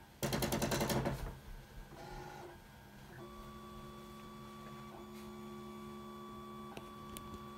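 Monoprice Maker Select Plus 3D printer running a print: a loud, fast buzzing rattle from its stepper motors for about a second near the start, then a steady whine as the print head travels, with a few light clicks.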